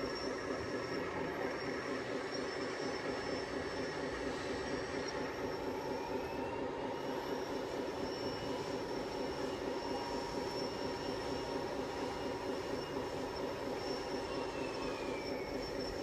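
Radio-controlled model construction vehicles running steadily: small electric motors and plastic/metal gearboxes whining, with a fast mechanical chatter and a higher whine that rises and then falls twice as the models speed up and slow down.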